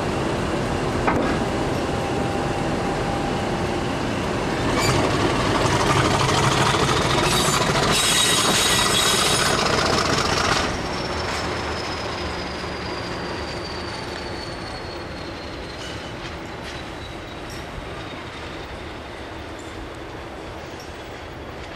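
Class 50 diesel locomotive hauling a train on the adjacent line, its engine working and its wheels running on the rails. The sound swells about five seconds in, with a high wheel squeal at its loudest, then drops back suddenly about ten seconds in, leaving a long high tone that falls slowly in pitch as it fades.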